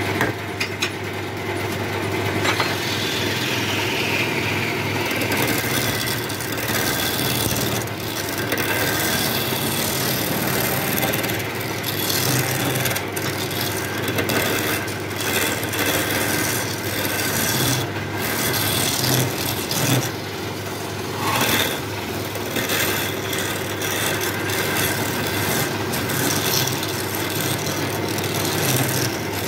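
Homemade wood lathe running while a hand-held turning tool cuts and scrapes a spinning palm-wood blank: a steady motor hum under continuous scraping of the tool on the wood.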